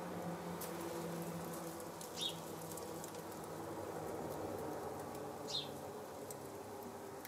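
Two short, high, falling bird chirps about three seconds apart, over a steady low buzz.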